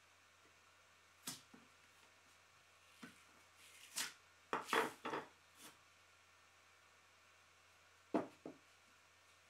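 A wooden board and a wood chisel being handled on the CNC machine's bed, making short knocks and scrapes. The busiest stretch is about four to five seconds in, with two more knocks near the end and quiet in between.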